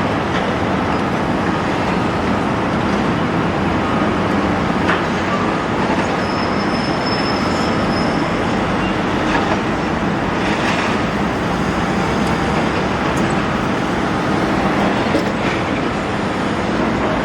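Large hydraulic excavator working on demolition: a steady engine and machine noise, with scattered knocks of breaking debris and a brief high metallic squeal about six seconds in.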